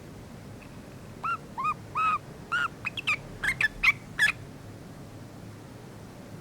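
Pet yellow-vented bulbul calling: a run of about ten short chirps over some three seconds, the first few lower and arched, the later ones quicker and sharper.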